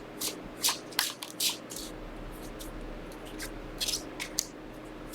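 Tarot cards being handled and shuffled: a series of short, soft papery swishes and flicks at uneven intervals.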